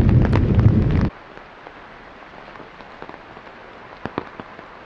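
Thunderstorm: a loud rumble of thunder with rain that stops abruptly about a second in, leaving soft steady rain hiss with a couple of sharp crackles near the end.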